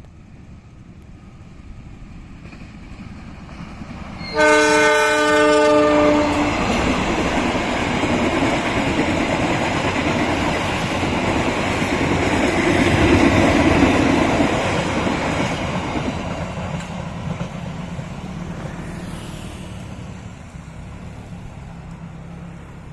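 CC 203 diesel locomotive approaching and sounding its horn in one loud blast of about two seconds, then the train passing with a rumble that builds to a peak and fades away.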